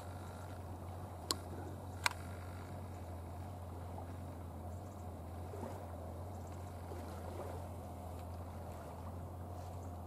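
Steady low hum and faint hiss of background noise, broken by two sharp clicks a little over a second in and again about two seconds in.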